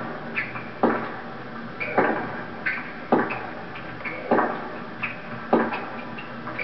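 Tennis rally: the ball is struck back and forth with racquets about once a second, with lighter ticks and squeaks in between. It is heard through a television's speaker.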